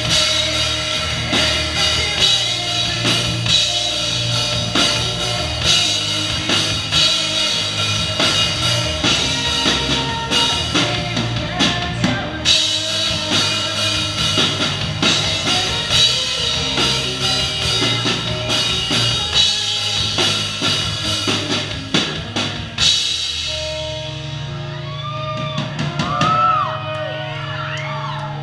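Live rock music from a drum kit and electric guitar, loud, with busy drumming and cymbals. About 23 seconds in the drums stop, and the guitar holds a low sustained note with sliding, bending pitches over it.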